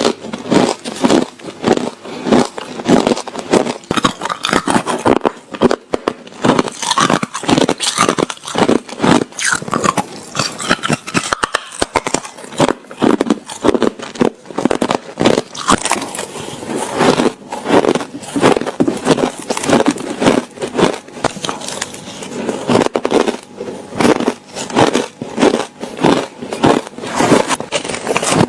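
A person biting and chewing ice with their teeth: a fast, unbroken run of loud crunches, about two a second.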